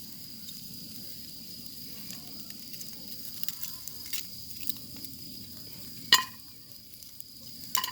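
Kebabs sizzling on skewers over a grill, with a steady high hiss and a few sharp clicks, the loudest about six seconds in.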